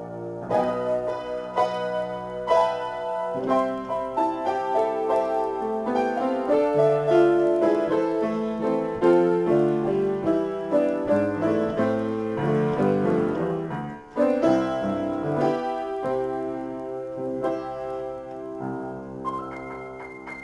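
Solo upright piano playing an improvised piece of chords and melody, with a brief break about two-thirds of the way through.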